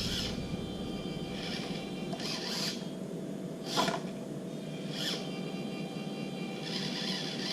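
A 1/24-scale RC crawler's small electric motor and gears whining steadily as it tries to climb a steep 45-degree ramp, with several brief scrapes along the way.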